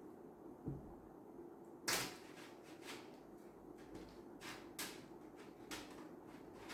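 Handling sounds from unboxing a PC case: a dull knock under a second in, a sharp click about two seconds in, then several fainter clicks and rustles of parts and packaging being moved, over a faint steady hum.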